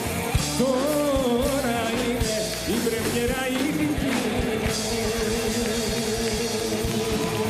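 Rock music with a steady drum beat, the tail of the song the band has just been singing.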